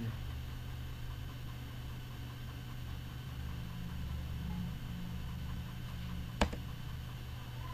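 Steady low background hum and hiss, with a single sharp computer mouse click about six and a half seconds in.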